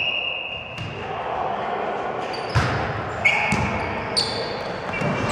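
Volleyball rally in an echoing sports hall: the ball is struck sharply a few times, about two and a half, three and a quarter and four seconds in, amid short high squeaks of shoes on the wooden floor and players' calls.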